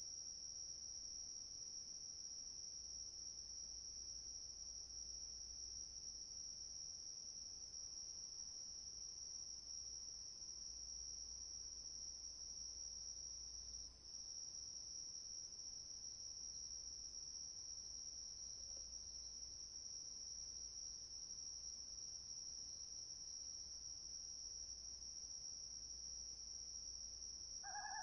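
Crickets chirping in a faint, steady, high-pitched chorus that runs without a break.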